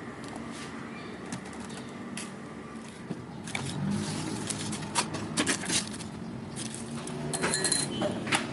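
Kitchen clatter of drink-making: quick taps, clicks and clinks of utensils and glassware, sparse at first and busier from about three and a half seconds in, with a short ringing clink near the end.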